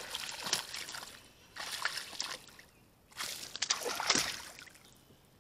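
A hooked bass thrashing at the surface beside a kayak, splashing in three bursts. The last and loudest burst comes about three seconds in, as the fish jumps clear of the water and falls back.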